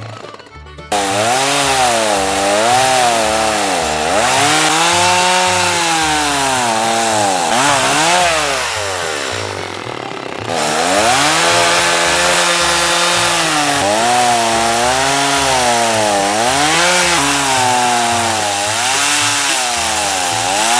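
Petrol chainsaw cutting down into the end of a log, its engine pitch sagging each time the chain bites into the wood and rising again, over and over. It revs up into the cut about a second in and eases off briefly about halfway through before cutting again.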